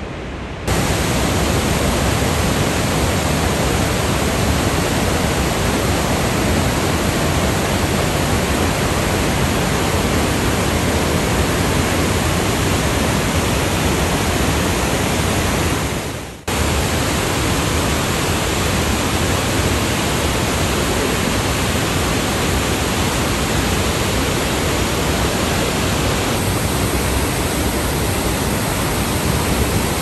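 The Rhine Falls: a loud, steady rush of whitewater pouring over the falls and through the rapids below. It breaks off for a moment about halfway through, then carries on unchanged.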